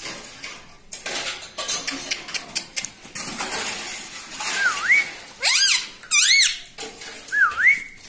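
Ring-necked parakeet whistles and calls: a smooth up-and-down whistle, two loud sharp calls, then the whistle again. In the first half, light clicking as a beak taps on a phone's screen.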